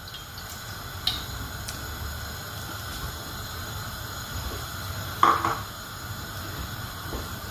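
A steady hiss from the lit gas hob and the hot kadai as cooking oil is poured into the preheated aluminium kadai. There is a light click about a second in, and a short, louder clink of the mug or pan a little after five seconds.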